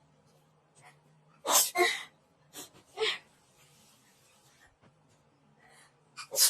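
A person sneezing from a nasal swab test: one loud sneeze about a second and a half in, followed by a few fainter short sounds.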